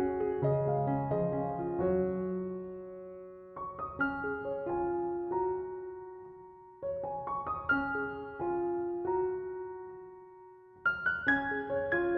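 Background piano music: slow groups of notes that ring and fade away, a new group starting about every three to four seconds.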